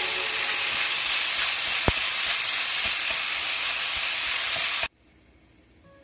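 Ground pork sizzling steadily as it fries in a stainless steel pan while being stirred with chopsticks, with a light tap about two seconds in. The sizzle cuts off suddenly shortly before the end.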